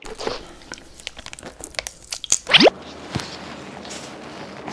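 Close-miked crunching bites of a snack, a quick run of sharp crackles. About halfway there is a single quick rising whoosh sound effect, followed by softer, steadier eating noise.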